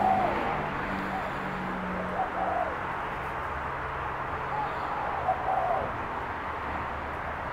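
Spotted dove cooing, a run of short coos repeated through several seconds over a steady background hiss.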